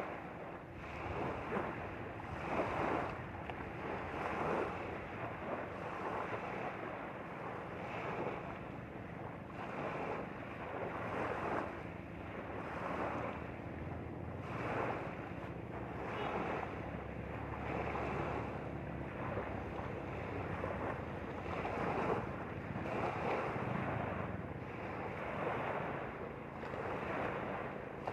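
Small lake waves lapping and washing against a pebbly shore, swelling every second or two, with wind blowing on the microphone.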